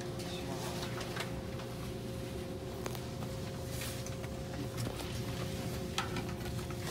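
Steady hum inside a stationary E657-series train car, its air conditioning and on-board electrical equipment running, with two faint held tones over a low rumble. A few faint clicks are heard.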